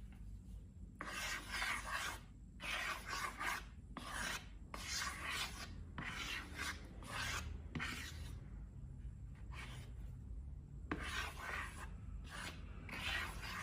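A series of short rubbing strokes, each about half a second, coming in quick runs with a pause of about two seconds past the middle.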